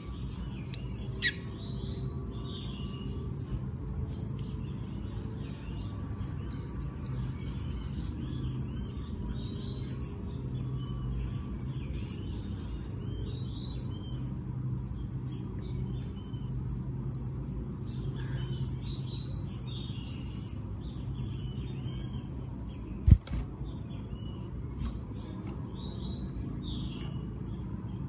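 Double-collared seedeater (coleiro) nestlings begging with a rapid, continuous stream of thin high-pitched cheeps. Short clusters of chirps come in every few seconds over a steady low hum, and there is a single thump about 23 seconds in.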